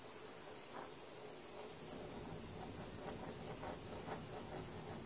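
Small handheld torch burning with a steady hiss, played over wet acrylic pour paint to warm it and bring up cells.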